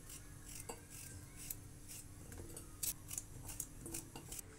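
Kitchen knife cutting through a raw peeled potato held in the hand: a string of faint, crisp cutting strokes.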